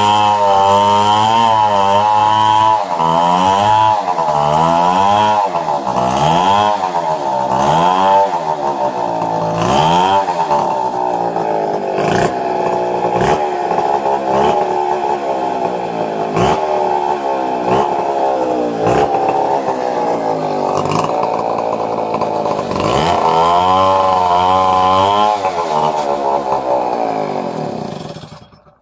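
Stihl 070 two-stroke chainsaw running hard, its engine pitch rising and dipping over and over as it is throttled and loaded. The sound fades out near the end.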